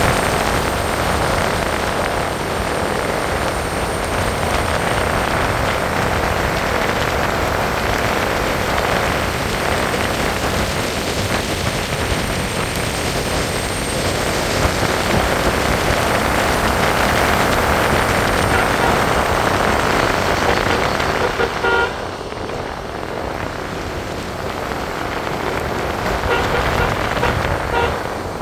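A car driving on a wet road, with a steady rush of tyre and rain noise. A short horn toot sounds about three-quarters of the way through.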